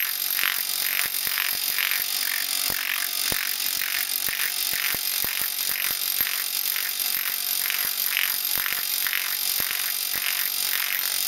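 Mittler Brothers pneumatic planishing hammer running steadily at low pressure as a small high-crown sheet-metal piece is smoothed under a flat 1.5-inch crown die, with a pulsing about twice a second. This is the smoothing stage that takes out the small dings left by the high-crown die.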